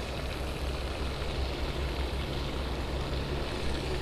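Steady low background rumble with a faint, even hum and no distinct events.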